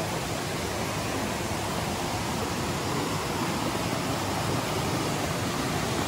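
Steady rush of flowing river water, an even unbroken hiss and roar.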